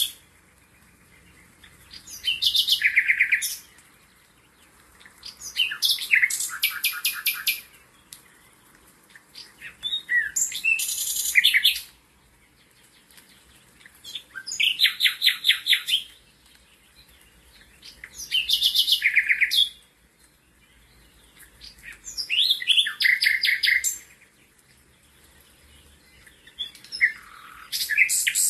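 A songbird singing the same short song over and over. Each phrase lasts about two seconds, is made of fast high notes running into a trill, and comes about every four seconds.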